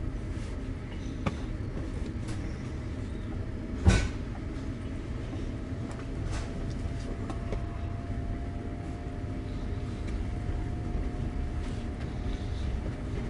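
Steady low rumble inside a passenger train carriage, with one sharp knock about four seconds in and a faint steady whine coming in partway through.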